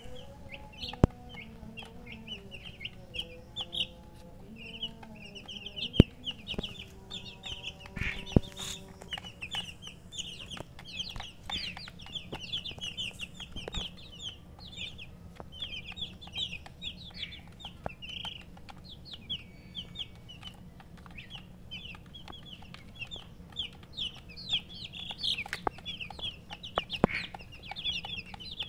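A group of domestic chicken chicks peeping nonstop, a dense stream of short high chirps. A few sharp taps stand out above them, the loudest about a second in, around six seconds and around eight seconds.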